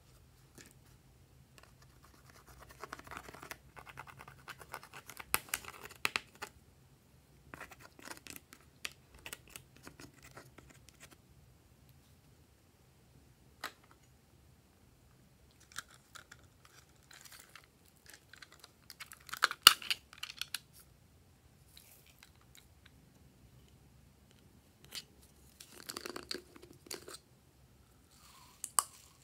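Hands handling a makeup palette and tipping slime add-ins (glitter, then small foam beads from a plastic cup) onto slime in glass trays: several spells of scratching and crackling with a few sharp clicks. The loudest burst comes about two-thirds of the way through.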